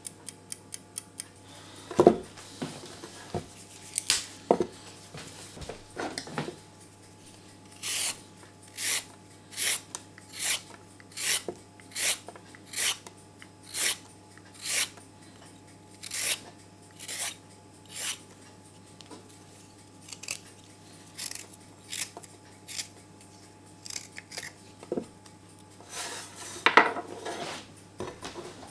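A carrot being peeled with a swivel vegetable peeler on a wooden cutting board: a run of short scraping strokes, about one a second, thinning out later. A wind-up kitchen timer ticks in the first second, and there are a few knocks and a clatter of the carrot and tools against the board, the sharpest about two seconds in.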